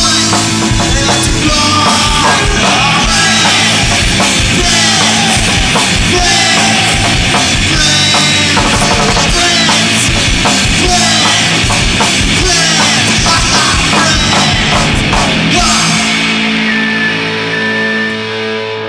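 Hardcore punk band playing at full tilt: fast drums under distorted electric guitars. About 16 seconds in the drums stop and a held guitar chord rings on, fading.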